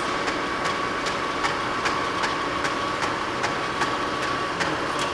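YCM-SuperMax horizontal-vertical milling machine running under power, with its feed drive engaged: a steady machine whine with a regular ticking about two and a half times a second.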